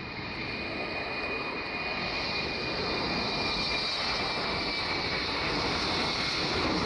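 Embraer 195LR's twin CF34-10E turbofan engines at takeoff thrust during the takeoff roll, growing steadily louder as the jet rolls past. A thin high whine drifts slightly lower in pitch.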